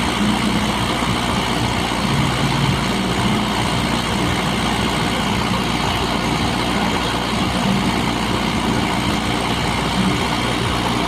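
Heavy diesel engine of earth-moving machinery running steadily at an even pitch, with no revving.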